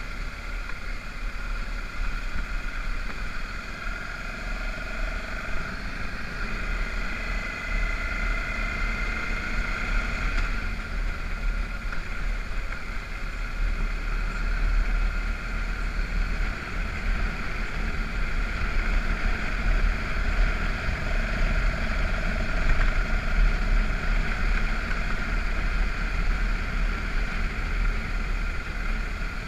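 BMW F650GS motorcycle engine running steadily under way, with a low rumble of wind on the microphone.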